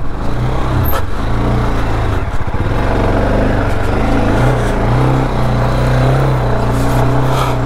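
Motorcycle engine running under throttle while riding off-road, its revs rising and falling.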